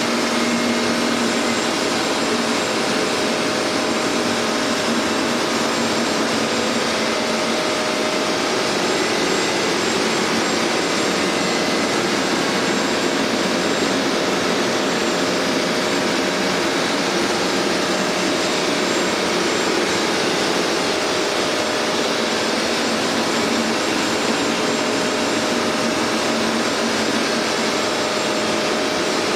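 Hoover MaxExtract carpet cleaner running steadily: a constant rush of motor and suction with a faint steady whine through it.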